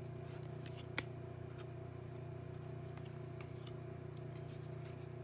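Trading cards being handled and flipped through by hand, giving faint scattered clicks and one sharper click about a second in, over a steady low hum.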